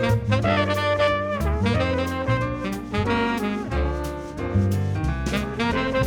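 Background music: upbeat jazz with brass and saxophone over a bass line and drums.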